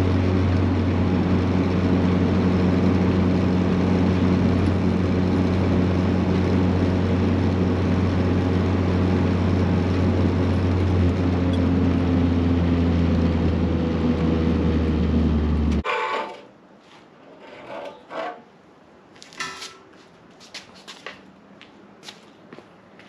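Steady, deep exhaust drone heard inside the cabin of an engine-swapped Honda Civic with a 3-inch stainless exhaust, cruising at steady revs. The owner traces the drone to an exhaust leak at a V-band flange. About sixteen seconds in it cuts off, and a few scattered clanks and knocks follow as a removed exhaust pipe is handled.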